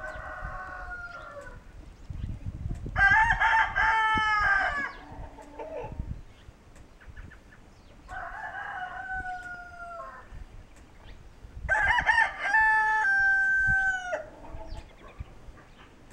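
Kencana rooster, a homegrown Ameraucana × Barred Rock hybrid, crowing twice, each crow about two seconds long and ending on a falling note, roughly nine seconds apart. Fainter crowing comes in between.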